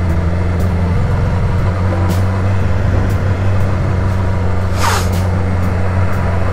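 Sport motorcycle engine running steadily while riding at road speed. A brief rushing burst comes about five seconds in.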